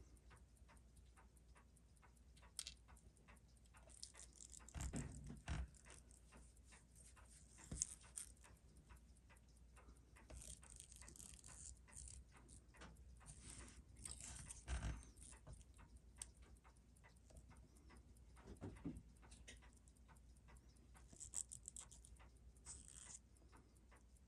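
Faint, irregular small clicks and taps of hand-tool and small-part handling at a watch-repair bench, with a few louder scraping, rustling moments about 5, 8, 15 and 19 seconds in.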